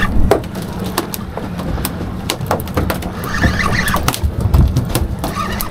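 Irregular sharp knocks and clatter of fish and fishing gear on a boat deck over a steady low rumble, with a few short squeaky sounds about three seconds in.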